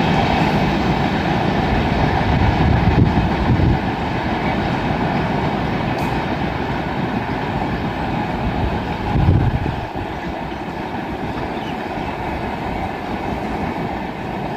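Express passenger train's coaches rolling past on the track, a steady rumble and rattle of wheels on rail. It surges louder twice, about three and nine seconds in, then eases off somewhat after about ten seconds.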